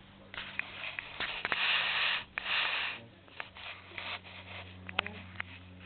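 A puppy's fur rubbing and brushing against the camera's microphone as it nuzzles up to it: several noisy scuffing bursts of up to about a second, with small clicks in between.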